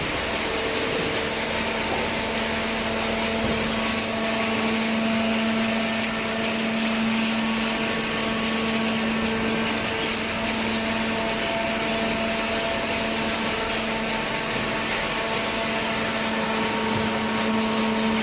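Horizontal hydraulic waste paper baler running, a steady mechanical whir with a constant hum from its hydraulic power unit; a lower hum comes in about a second in and holds steady.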